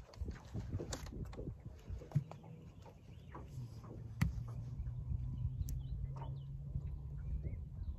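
A boat motor hums steadily, coming on a few seconds in, with scattered light clicks and knocks of gear being handled.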